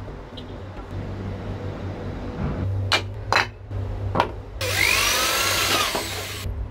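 A few sharp knocks, then an electric drill boring into a painted wooden board for nearly two seconds, starting about two-thirds of the way in and stopping just before the end.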